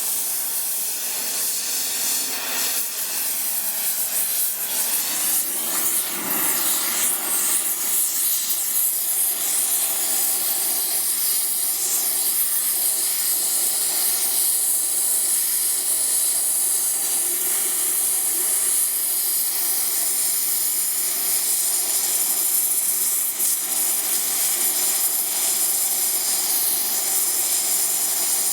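Gas torch flame hissing steadily as it heats a drilled, broken-off bolt to loosen it, growing a little louder about six seconds in.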